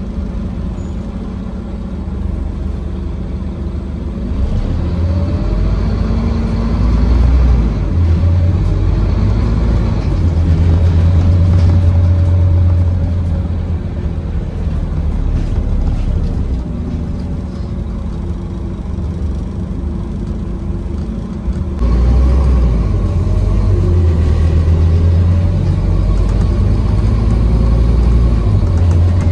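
The five-cylinder diesel engine of a Scania N230UD double-decker bus, heard from the upper deck while the bus drives along. It is a deep rumble whose pitch rises and falls as the bus accelerates and eases off, and it grows suddenly louder about three-quarters of the way through.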